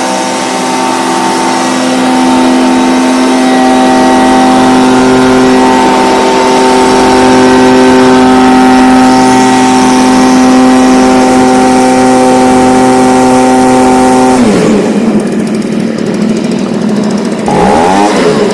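Stihl BG55 handheld leaf blower's two-stroke engine held steady at full throttle, running on a newly fitted replacement carburetor. About fourteen seconds in the throttle is let off and it drops quickly to idle, then it blips up and back down once near the end.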